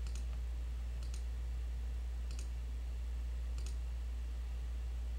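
Computer mouse button clicked four times, about a second apart, over a steady low hum.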